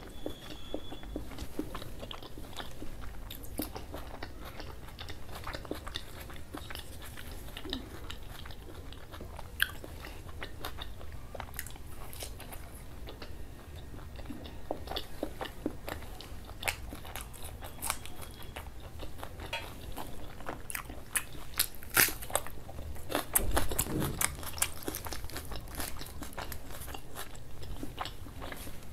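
A man chewing and biting food close to the microphone: a continuous run of wet mouth clicks and small crunches, getting thicker and louder in the last third, with one low thud among them.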